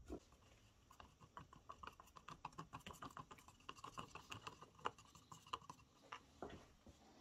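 Wooden stirring stick faintly and irregularly ticking and scraping against the inside of a thin plastic cup while clear epoxy resin is stirred, with a light knock at the start as the cup is set down.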